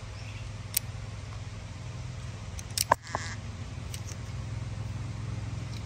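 A few sharp clicks and knocks from hands working a removed AC contactor and its parts. The loudest comes just under three seconds in. Under them runs a steady low hum.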